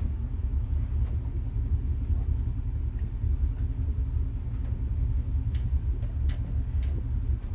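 Cabin cruiser's inboard engines idling while manoeuvring at low speed: a steady low rumble, with a few faint clicks near the end.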